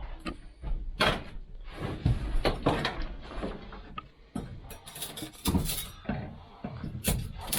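Irregular knocks, bangs and scraping of hand demolition work inside a steel panel-van body as glued-on interior fittings are pried loose, with clinks of loose glass pieces.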